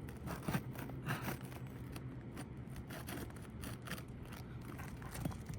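Scattered scrapes and clicks of a nail puller being worked under brittle old asphalt shingles to lift them and get at the nails, over a steady low hum.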